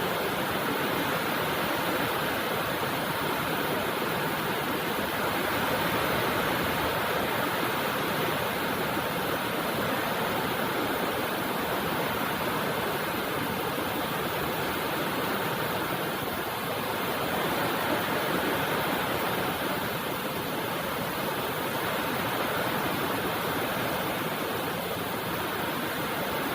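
Steady rainfall, an even hiss of water that holds at one level throughout.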